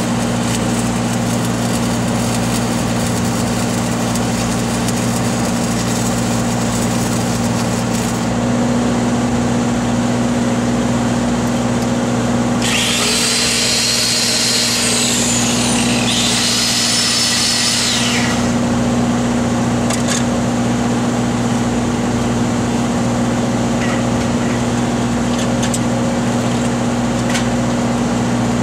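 An engine-driven welding machine runs at a steady speed throughout. From about 13 to 18 seconds in, a power tool, likely an angle grinder, runs in two passes, its high whine dipping in pitch as it bears on the metal.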